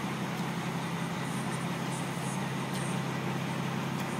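Semi truck's diesel engine idling, a steady low hum that does not change.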